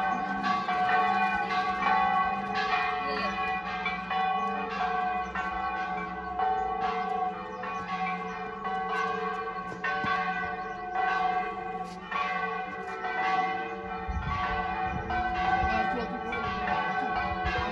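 Church bells ringing in a continuous peal, with strikes coming about twice a second.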